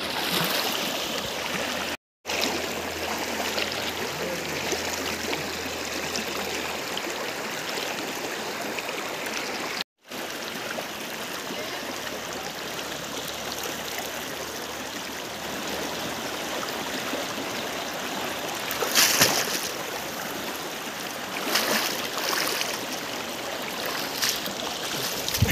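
Steady rushing of flowing stream water, cut off twice for a split second, with a few louder short bursts near the end.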